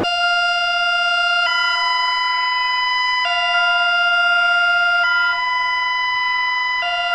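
Emergency alert alarm tone: a loud electronic two-note signal that switches back and forth between a lower and a higher pitch, each note held steadily for about a second and a half to two seconds.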